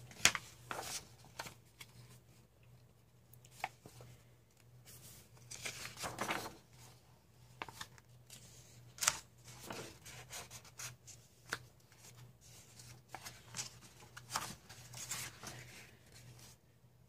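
Paper pages of a softcover coloring book being turned and pressed flat by hand: short rustling swishes with a few sharp paper crackles, over a faint steady low hum.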